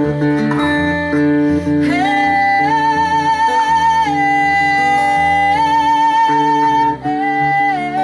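Acoustic guitar playing steadily. About two seconds in, a woman's voice comes in singing long, high held notes with vibrato over it.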